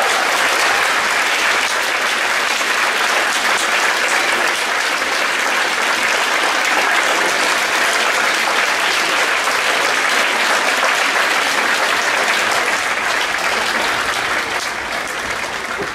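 Concert audience applauding steadily after a dance number.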